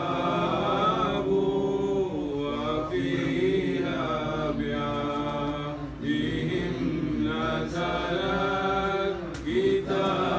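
Unaccompanied man's voice chanting a devotional munajat qasida, in long held melodic phrases that bend in pitch, with short breaths between phrases.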